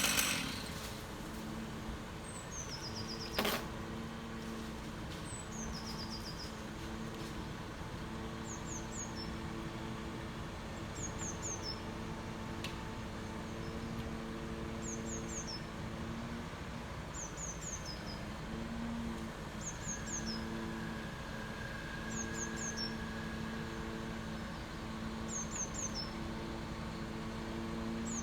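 An engine runs steadily at low revs under a bird singing a short high phrase of three or four quick falling notes, repeated about every two seconds. There is one sharp knock a few seconds in.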